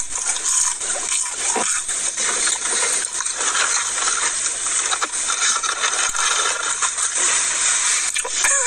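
A cardboard fries carton handled and rummaged in, giving scattered light clicks and rustles over a steady hiss.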